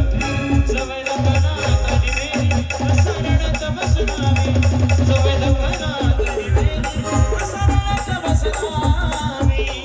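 Live band music with a heavy, fast drum beat, rattling shaker-like percussion and a sustained melody line over it, with no clear vocal.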